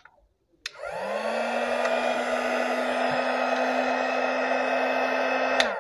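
Buildskill 400 W mini heat gun clicked on at its low 250-degree setting: the fan motor spins up with a rising whine and settles into a steady blowing hum, then it is clicked off near the end and winds down.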